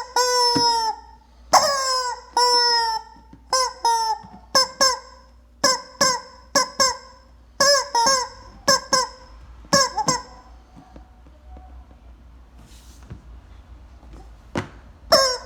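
Rubber chicken squeeze toy being squeezed again and again, each squeeze giving a loud honking squawk that falls in pitch. The first squawks last about a second each, later ones come shorter and quicker. They stop about two-thirds of the way through and start again near the end.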